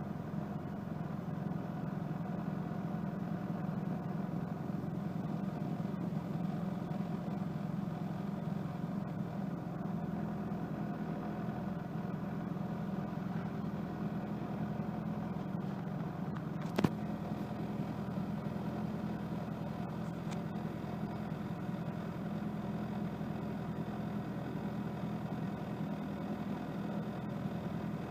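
Mitsubishi Lancer's fuel-injected engine idling steadily while warming up from a cold start, with a newly fitted MAF sensor meant to cure a rough idle. A single sharp click about seventeen seconds in.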